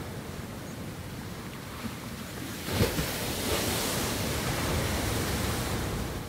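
Steady rushing of sea surf and wind, with one louder surge about three seconds in, starting to fade out at the end.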